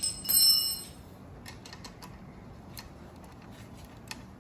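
A metal wrench clinks against a bicycle headset nut and rings briefly with a high metallic tone, then a few faint ticks follow as the headset nuts are tightened.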